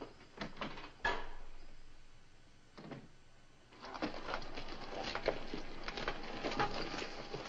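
Footsteps and knocks on wooden boards, with a louder bang that rings on for a moment about a second in, like a door shutting. From about four seconds there is a busier clatter of footsteps and hooves.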